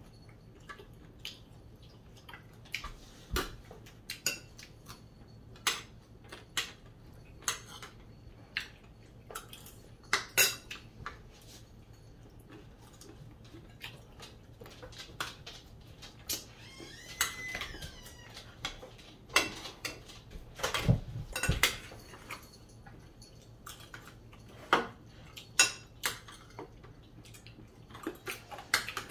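Forks and spoons clinking and scraping on ceramic plates and a bowl while eating, in irregular separate clinks, with a duller, heavier knock about two-thirds of the way through.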